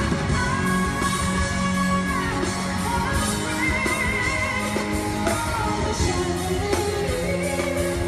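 A woman singing live with a full band, holding long notes, one with a wide vibrato about halfway through.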